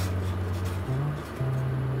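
Background music: held low bass notes that step to a new pitch every half second or so, with softer sustained tones above.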